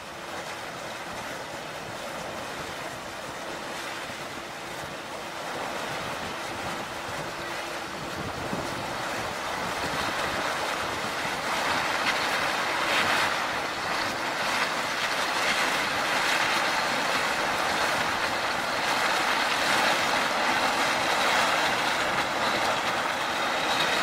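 The bulk freighter CSL Assiniboine's hull breaking through harbour ice: a steady rushing, crushing noise that grows louder as the ship comes alongside, with a faint steady hum underneath.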